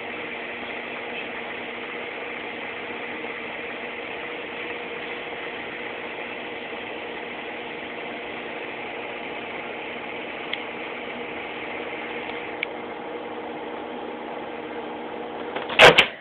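Microwave oven running with a steady hum. Near the end there is a loud, sharp clack, and the hum stops.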